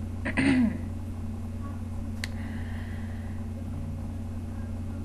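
A woman's short vocal sound, like a brief throat clear or murmur, about half a second in, over a steady low electrical hum. A single faint click about two seconds in.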